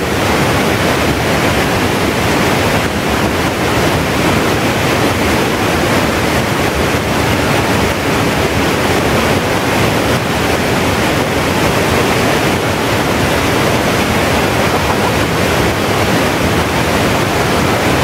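Rain-swollen waterfall stream in flood: a loud, steady rush of strong current pouring over the cascades.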